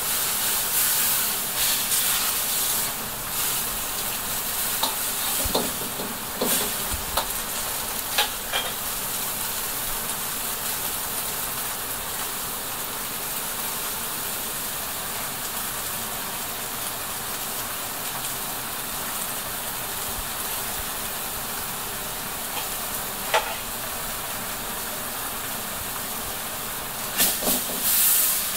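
Broth boiling hard in a wok over high heat: a steady sizzling hiss. A metal ladle clicks and scrapes against the wok now and then in the first several seconds, and a few louder clanks come near the end as the wok is handled.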